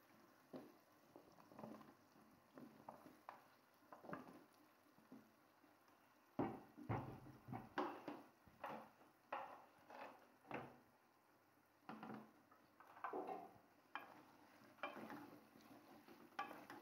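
A cooking spoon stirring in a pot, knocking and scraping against it as potatoes are mixed in with peas and spinach. The knocks come irregularly, about once a second, louder for a few seconds in the middle.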